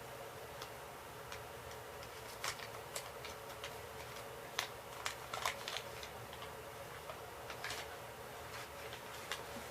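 Small plastic toy shelf pieces clicking and tapping as they are snapped together: a scattering of light, irregular clicks, the strongest in the middle, over a faint steady background hiss.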